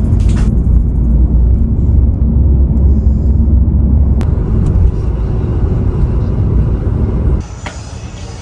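A loud, steady low rumble that cuts off suddenly about seven seconds in, followed by background music.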